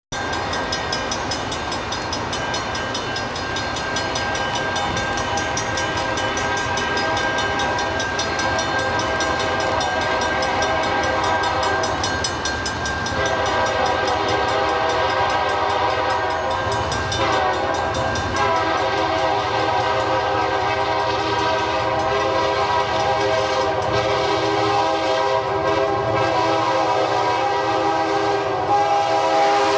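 Approaching freight train's diesel locomotive air horn sounding long, almost unbroken chord blasts, with short breaks about halfway through and again a few seconds later, growing louder as the train nears.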